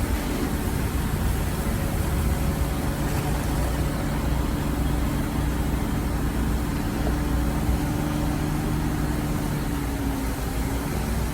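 Heavy diesel engine of earthmoving machinery running at a steady speed, its low hum holding a constant pitch that dips slightly near the end.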